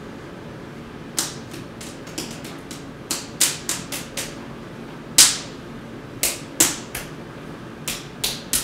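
An irregular series of sharp clicks and taps, close to twenty, starting about a second in, with the loudest about halfway through, over a faint steady room hum.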